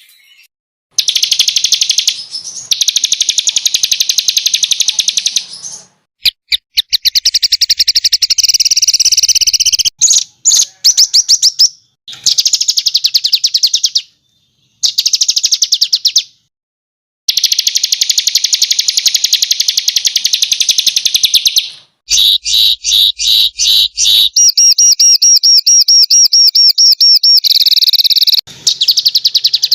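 Songbird song of very fast, high-pitched repeated notes in rapid-fire trills ('tembakan'), in bursts of a few seconds that start and stop abruptly with short silent gaps between them: an edited masteran recording for training caged songbirds.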